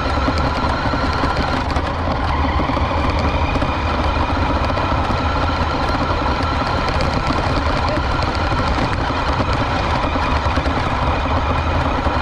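Remote-control truck driving, its motor whining steadily, with rattles and small knocks from the wheels over the ground.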